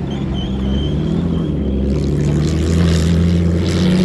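1956 Jaguar D-Type's twin-cam straight-six engine running as the car drives slowly past, its pitch steady and then starting to climb near the end as it picks up speed.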